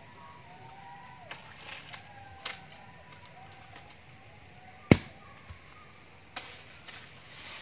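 A handful of sharp knocks and cracks at irregular intervals, one much louder about five seconds in, over faint bird calls.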